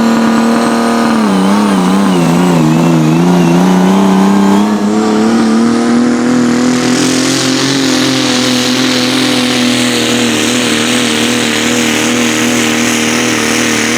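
A pulling tractor's engine running hard at high revs under load. Its pitch sags about a second in, climbs back over the next few seconds and then holds steady, and a loud hiss joins it about halfway through.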